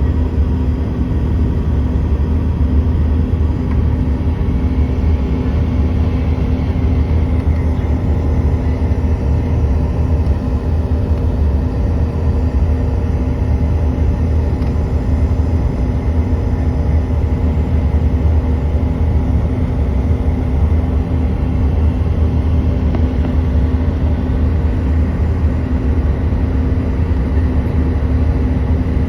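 Steady drone of a CRJ200 regional jet's twin turbofan engines and airflow: a low rumble with several steady tones over it, unchanging in level throughout.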